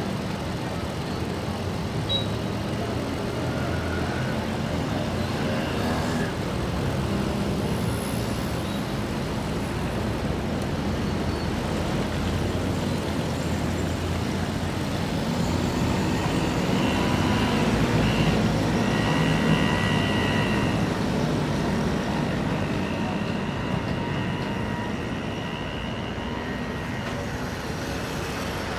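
Busy road traffic: a steady rumble of cars and heavier vehicles running and passing. About halfway through, a few drawn-out high tones are held for a second or two each.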